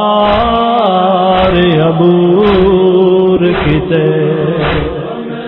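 A man singing a Punjabi noha, a Shia lament, in long held, wavering notes, with a regular beat about once a second. It gets a little quieter near the end.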